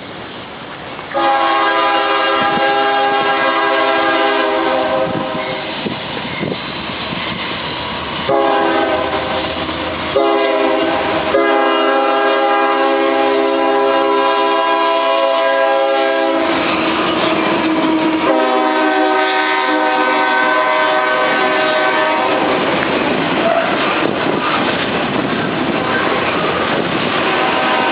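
CSX freight locomotive sounding its air horn in four loud blasts, the third the longest, as the train approaches, then the steady rumble and clatter of the passing freight cars on the rails.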